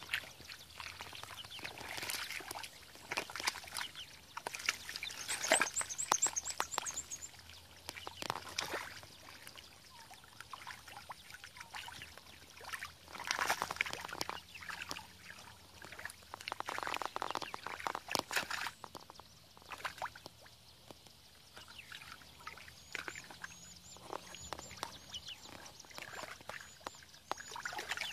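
Hands groping and sloshing through mud and shallow muddy water, making irregular splashes in bursts of varying loudness.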